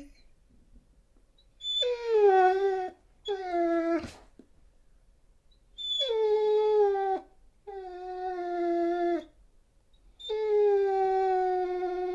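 A dog crying: five long, drawn-out whining howls, each starting a little higher and settling to a steady pitch, with short pauses between them. A sharp click sounds about four seconds in.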